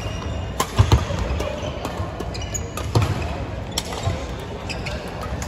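A badminton rally on a wooden sports-hall court: sharp racket hits on the shuttlecock and the thuds of players' footwork, with clusters of impacts about a second in, at three seconds and around four seconds, over the steady murmur of the busy hall.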